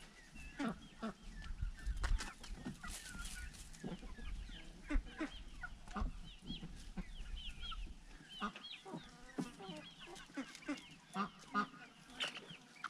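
Poultry clucking and giving many short, high chirps, with scattered sharp clicks and a low rumble that fades out about eight seconds in.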